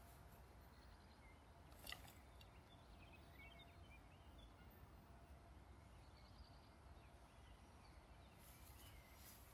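Near silence: faint outdoor ambience with a low rumble, a single short click about two seconds in, and a few faint bird chirps.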